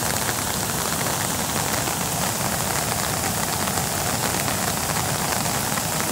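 Heavy rain falling, a steady even hiss that holds without change.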